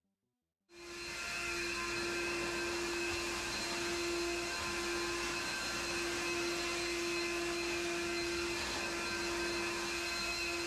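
Wet/dry shop vacuum running at a steady pitch: a constant whine over a rush of air, fading in under a second in.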